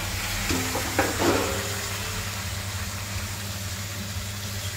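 Boiled cauliflower, potato, carrot and peas tipped from a metal plate into a hot kadhai of spiced oil, hissing and sizzling, with a clatter and brief ring of the plate against the pan about a second in. A steady low hum runs underneath.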